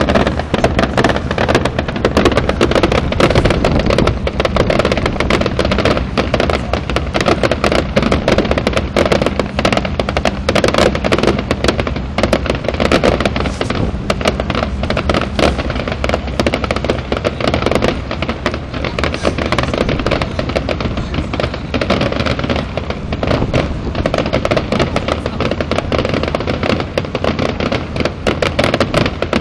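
Large fireworks display: a dense, continuous barrage of bangs and crackles, with no let-up.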